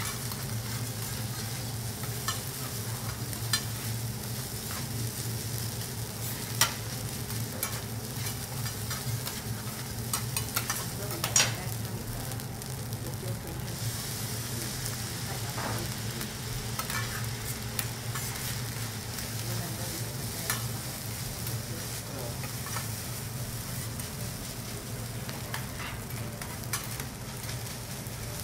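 Food sizzling on a teppanyaki griddle, with sharp clicks and scrapes of the cooking tools scattered through it, the loudest about eleven seconds in, over a steady low hum.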